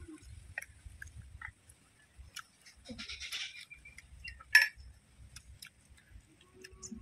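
Quiet eating sounds with scattered small clicks, and one sharp clink of a metal spoon against a clay curry pot about four and a half seconds in.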